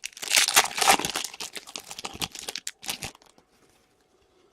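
A hockey card pack's wrapper crinkling and tearing as it is ripped open. There is a dense burst of crackling for about a second, then scattered crinkles until about three seconds in.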